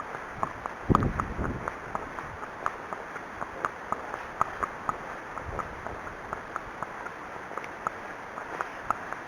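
Unshod Arabian horse's hooves walking on hard ground, a steady clip-clop of about three steps a second. Gusty wind rumbles on the microphone about a second in.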